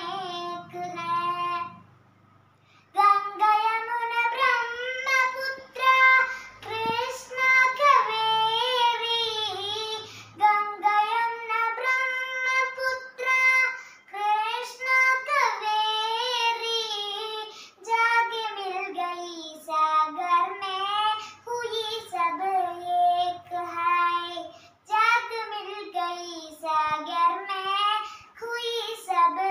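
A young girl singing a Hindi song solo with no accompaniment, holding and bending long sung notes; her voice stops for about a second near the start, then carries on.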